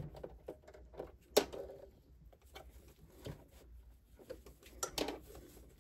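Irregular light clicks and fabric rustling as fabric is smoothed and positioned under a sewing machine's presser foot, with one sharper click about a second and a half in; the machine is not stitching.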